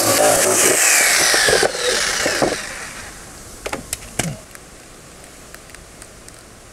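Electric jigsaw cutting through a plastic storage-box lid, running loudly for the first couple of seconds, then stopping and winding down. A few sharp knocks follow about four seconds in.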